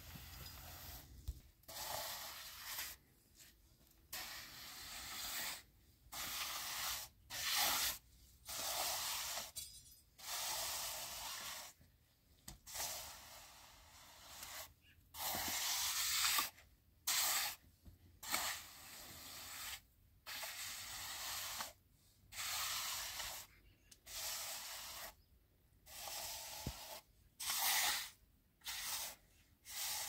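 Hand trowel scraping across wet cement as a fresh floor is smoothed: a long series of short scraping strokes, roughly one a second, with brief gaps between them.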